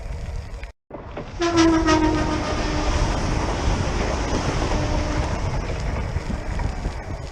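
Electric commuter train sounding its horn about a second and a half in, one loud note dipping slightly in pitch, then rumbling past close by with wheel noise; a fainter horn note sounds again near the middle.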